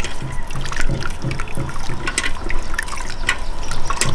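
Water dripping and splashing in a steel pot as a cloth bundle of ground almonds is squeezed and rubbed in it, in quick irregular wet squelches and drips.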